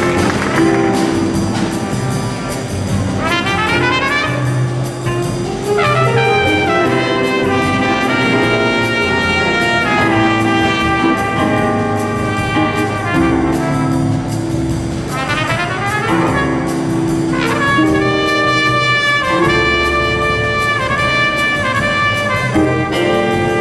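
Jazz big band playing live: saxophones, trumpets and trombones in ensemble chords over bass and drums, with two rising runs through the horns.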